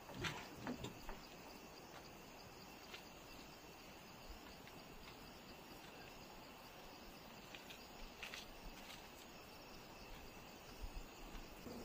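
Quiet rural ambience: a faint, steady, high-pitched insect drone, with a few scattered short clicks and scuffs.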